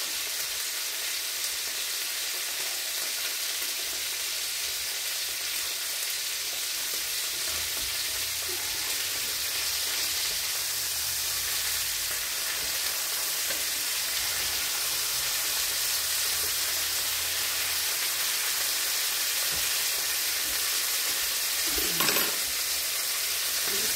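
Boneless meat sizzling steadily as it fries in two pans on an electric stove, with a short clatter of a utensil or shaker near the end.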